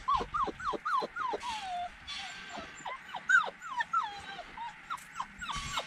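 American Collie puppies whimpering: a string of short, high-pitched rising-and-falling squeaks, coming quickly about five a second at first, then more scattered, with some cries overlapping.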